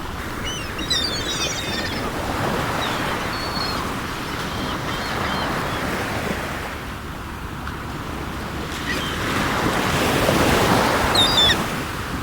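Sea waves washing in, the surf swelling and ebbing, with short high gull cries about half a second in and again near the end.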